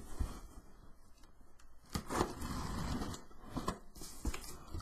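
A cardboard shipping box being handled and opened: scattered knocks and clicks, with a stretch of scraping and rustling about two seconds in.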